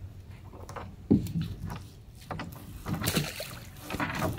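Crab net being hauled in over the side of a small boat: a knock against the hull about a second in, then scattered rustling of the wet net with light splashing of water.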